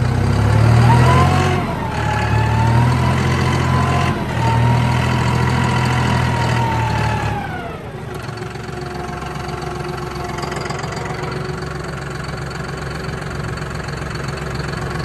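John Deere 5065E tractor's diesel engine running under load with a whine that rises and falls in pitch. About eight seconds in, the whine slides down and fades, and the engine settles back to a quieter, steady idle.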